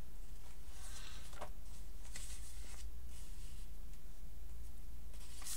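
A linen cloth rustling and light scrapes as it is handled and wiped over a small metal paten and chalice on a cloth-covered table, in several short rustles, with the altar vessels being cleared after communion. A steady low hum runs underneath.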